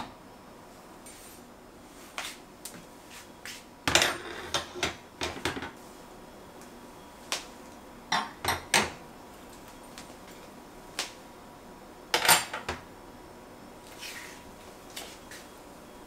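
Kitchen clatter: dishes and utensils knocked and set down in short clusters of sharp clicks, the loudest about four seconds in and again about twelve seconds in.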